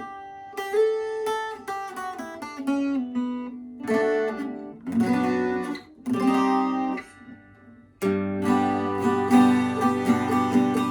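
Fender CD-140SCE 12-string dreadnought acoustic guitar being played: picked single notes and arpeggios, then a few ringing chords, a short pause, and louder strummed chords from about eight seconds in.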